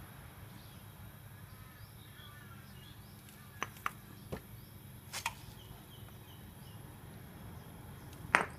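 Short metal clicks and clinks as gears are lifted out of a Yamaha Mio scooter's oily final-drive gear case: a few scattered across the middle and a louder one near the end.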